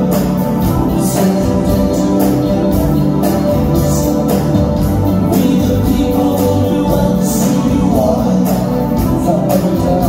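Live band playing a pop song: male lead vocal over electric guitar, drum kit and keyboards.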